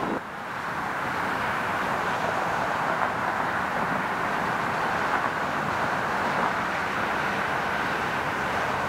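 Jet engines of a Boeing 737 airliner on final approach, a steady rushing noise.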